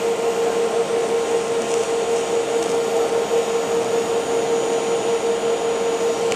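TIG welding arc burning steadily on a steel sprocket: an even hiss with a steady buzzing hum.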